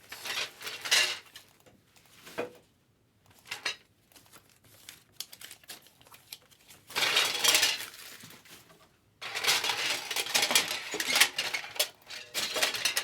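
Crinkling and rustling of plastic wrap, foil packs and cardboard as a jumbo box of 2020 Bowman Draft baseball cards is opened by hand. It comes in bursts with a near-quiet spell in the middle, then steady rustling from about nine seconds in.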